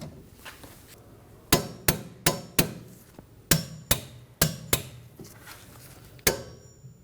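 Click-type torque wrench clicking as the wheel hub bolts reach their set torque of 81 ft-lb: two runs of four sharp clicks, about three a second, then one more near the end.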